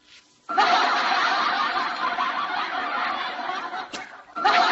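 Loud, dense laughter that starts about half a second in, breaks off briefly near the end, then starts again.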